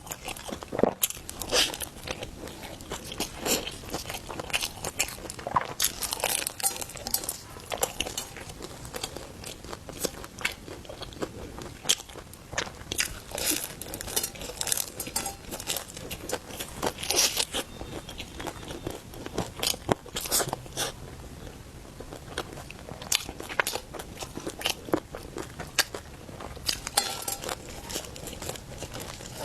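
Close-up biting and chewing of roujiamo, a crisp flatbread bun stuffed with meat, with many sharp, irregular crunches.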